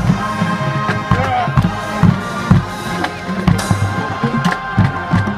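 Marching band playing a field show: wind instruments hold chords over a steady pattern of bass drum and snare hits.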